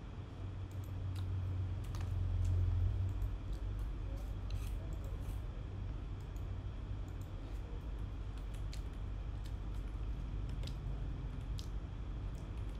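Scattered light clicks of a computer mouse and keyboard at irregular intervals, over a steady low hum that swells briefly about two to three seconds in.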